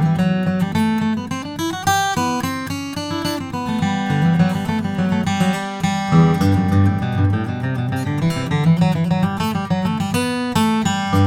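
Taylor 324e mahogany-top, mahogany back-and-sides acoustic guitar being played: a continuous passage of chords with many quick note attacks.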